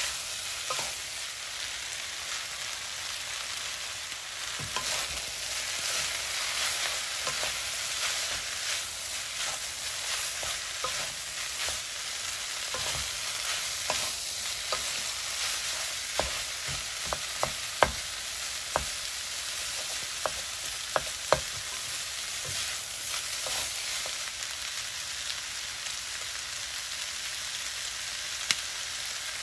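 Yakisoba noodles with chicken and vegetables sizzling steadily in a frying pan as they are stir-fried with two spatulas, with scattered clicks and knocks of the spatulas against the pan, several of them sharp and close together in the middle.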